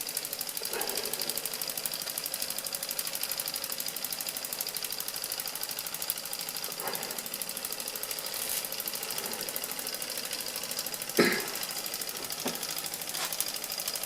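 Doll 320/3 toy stationary steam engine running steadily on steam, a fast even mechanical beat, with a faint steady high hiss. A single knock sounds about eleven seconds in.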